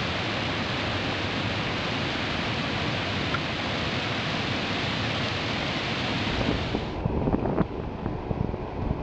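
Steady rush of river water flowing over rapids, a smooth, even hiss. About seven seconds in it cuts off abruptly, giving way to gusty wind on the microphone and a low, uneven rumble while rolling along the paved path on inline skates.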